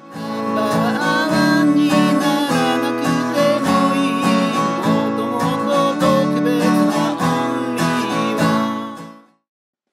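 Gibson J-45 acoustic guitar, capoed, strumming chords in a steady rhythm, fading out about nine seconds in.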